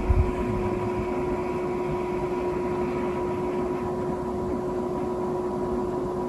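Steady machine-like hum with two faint held tones, and a couple of soft low thumps right at the start.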